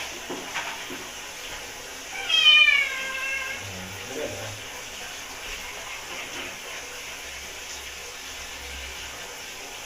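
A domestic cat meows once, a long cry that falls in pitch, about two seconds in, while it is being bathed.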